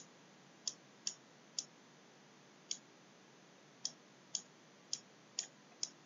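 Faint, sharp clicks, about ten at uneven intervals, from a stylus tapping and writing on a pen tablet.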